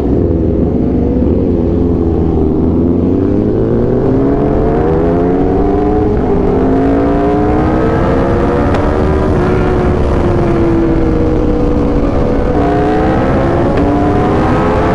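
Aprilia RSV4 1100 Factory V4 engine through an SC Project exhaust, under way at steady riding speed, its pitch slowly rising and falling with the throttle, over heavy wind rumble on the microphone.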